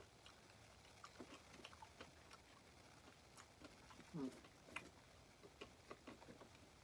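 Faint, scattered small clicks and ticks of a small dog eating chicken nugget pieces off a paper wrapper, with one brief low vocal sound about four seconds in.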